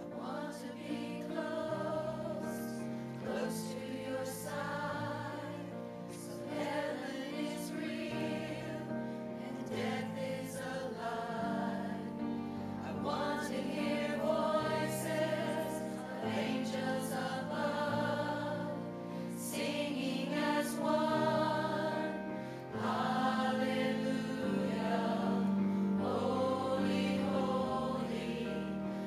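Church choir singing together over sustained instrumental accompaniment with steady low notes.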